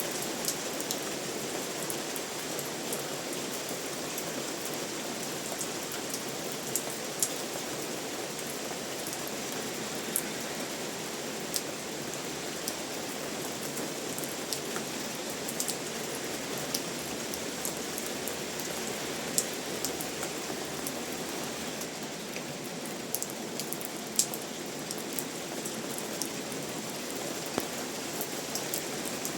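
Steady rain falling, with scattered sharper drops striking a surface close by.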